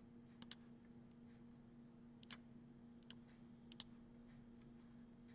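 Faint computer mouse clicks, a few scattered over several seconds, some in quick pairs, as radio buttons are selected. A faint steady hum sits under them.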